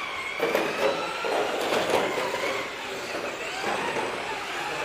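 Radio-controlled touring cars driving, their motors whining and sliding up and down in pitch as they speed up and slow down, with a few sharp clicks in the first two seconds.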